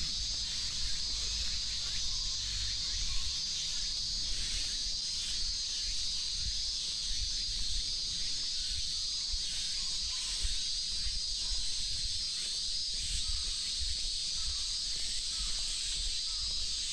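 A chorus of cicadas drones steadily and high-pitched, with a low rumble underneath.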